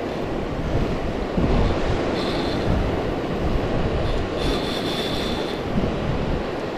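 Wind and surf rumble on the microphone while a Daiwa BG MQ 8000 spinning reel is cranked against a hooked fish. Two short high whines come from the reel, one about two seconds in and a longer one around five seconds.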